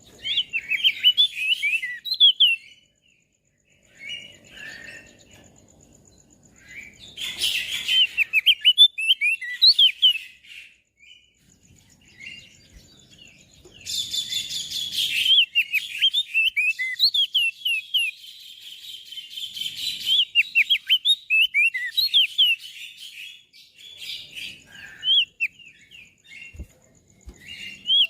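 Crested white-eye (opior jambul) singing in rapid phrases of high, fast-gliding chirping notes, separated by short pauses, with a couple of harsher, noisier bursts mixed in.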